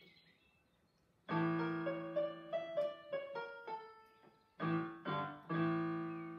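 Portable electronic keyboard played in a piano voice: after a faint start, a chord sounds about a second in, followed by a short melody over held low notes, with another strong chord near the end.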